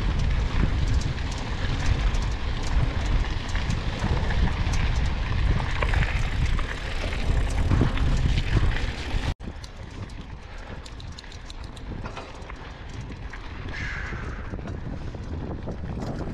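Mountain bike riding over a dirt road: wind buffeting the microphone over the rolling noise of the tyres, with frequent small clicks and rattles from the gravel. About nine seconds in the sound cuts off abruptly and carries on much quieter.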